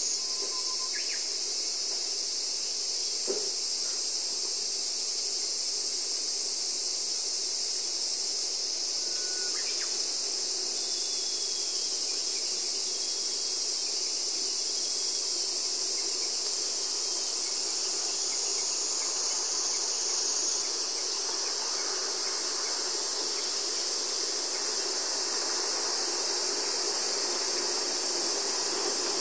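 A dense, steady, high-pitched chorus of insects, with a fainter low steady rumble underneath from the train crawling along slowly. There is a single short click about three seconds in.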